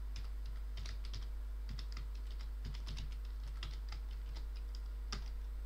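Computer keyboard typing: a run of short, irregular key clicks as a short command is typed, one click about five seconds in louder than the rest. A steady low hum runs underneath.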